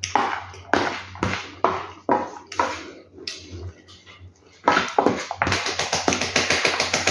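A metal spoon scraping and knocking against a bowl as a heap of rice, beans and couscous is stirred together: separate strokes about twice a second, then, about two-thirds of the way in, a quicker run of rapid scrapes.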